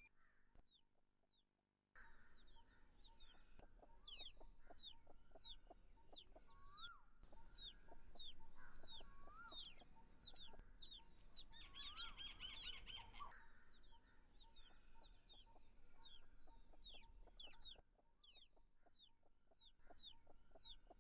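Faint birdsong: many quick, high, falling chirps, with chickens clucking and now and then a rising call note.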